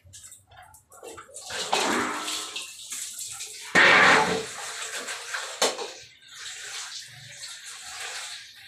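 Water from a garden hose splashing onto a wet dog and the tiled floor during its bath, coming in uneven gushes, loudest about four seconds in.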